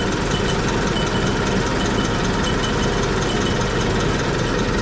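Honda D16 four-cylinder engine idling steadily, with no knock standing out: the clicking the owner took for a possible rod knock has largely gone quiet. A faint high-pitched tone pulses a few times a second over it.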